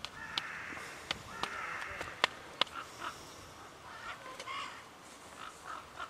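Crows cawing: harsh calls that overlap through the first two seconds and come again around four seconds in. Several sharp clicks cut through them, the loudest a little after two seconds.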